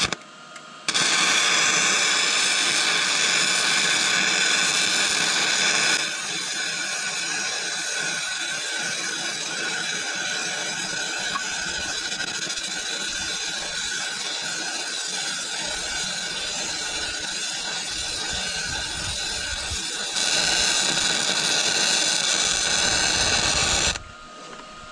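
MIG welding arc sizzling steadily as square steel grouser bars are welded onto a dozer's steel track shoes. It starts about a second in, is louder for the first few seconds and again for the last few, and cuts off abruptly near the end.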